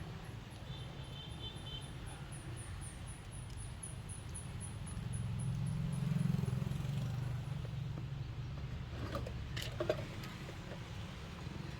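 Low steady rumble of road traffic that swells for a few seconds in the middle as a vehicle passes, with a rapid, high-pitched chirping in the first half and a few light clicks near the end.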